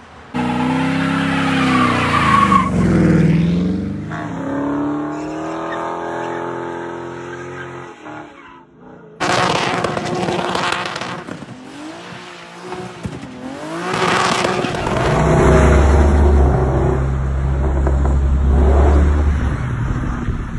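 Sports-car sounds in separate clips. First an engine revving hard, its pitch swinging down and up, then running steadily. After a sudden cut, tires squeal through a smoky drift, and near the end a deep, steady engine rumble takes over.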